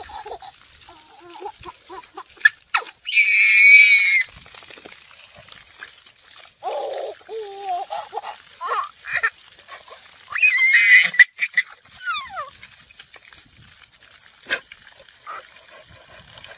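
A baby's high-pitched squeals of delight, two long ones about three and ten seconds in, with lower giggling and babbling in between.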